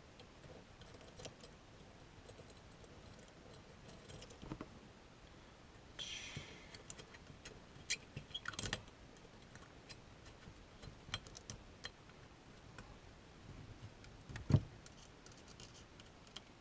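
Small metal clicks and scrapes of a screw being put back and driven into lever-set hardware by hand. There is a short scraping rasp about six seconds in, a few clicks a couple of seconds later and a single knock near the end.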